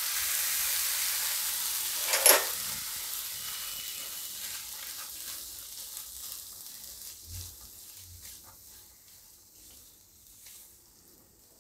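Lemon juice hitting a hot nonstick kadai of cooked moong beans sizzles hard at once, with a brief louder flare about two seconds in. The sizzle then dies away steadily, since the gas is off and the pan is cooling, while a silicone spatula stirs through the beans.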